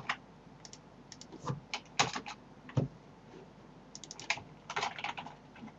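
Computer keyboard keystrokes at irregular intervals, a few single keys, then quick runs of several keys about four and five seconds in.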